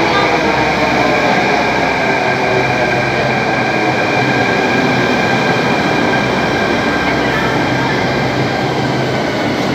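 Delhi Metro train pulling into an underground station and slowing, its rumble steady and loud, with several whining tones that fall gradually in pitch as it slows.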